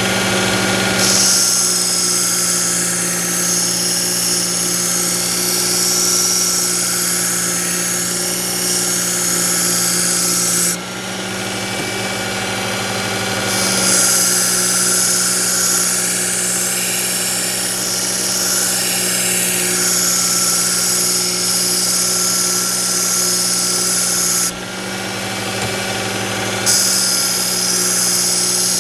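Work Sharp belt knife sharpener's motor running steadily with a 120-grit belt, grinding a kitchen knife's edge in three long passes of about ten seconds each. Twice the hiss of the belt on the steel drops away for a couple of seconds between passes while the motor keeps humming, a little higher unloaded. The coarse grinding is to remove a nick in the edge.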